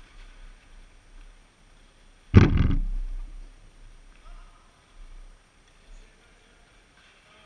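A single loud, sudden thump about two and a half seconds in, dying away over about half a second in the large hall, followed by a couple of faint, short knocks.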